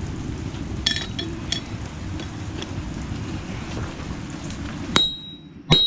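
Propane forge burner running with a steady low rush, with a few faint metallic clicks. Near the end come two ringing metal-on-metal strikes, about a second apart, of a hammer or tongs on the steel.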